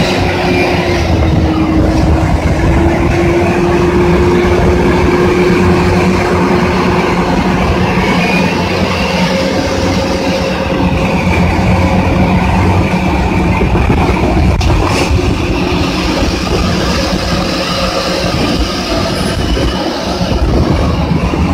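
Caterpillar 6030 hydraulic mining shovel working a dig face: a loud, steady mechanical drone from its diesel power unit, with several held tones over a constant rumble.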